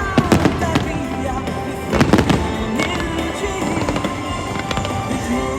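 Aerial fireworks bursting with sharp bangs, a cluster just after the start and a louder cluster about two seconds in, over music played for the display.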